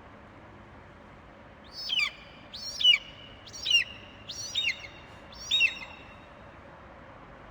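A bird calling five times, roughly once a second, each call a short high note that loops and then falls in pitch.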